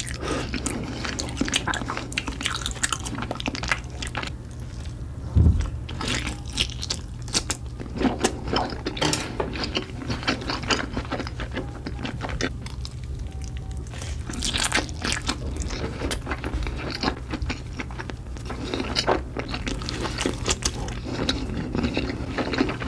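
Close-miked mukbang eating: biting into spam and thick sausages and chewing them with wet smacks and crackles, along with heavy breathing. A single low thump about five seconds in is the loudest sound.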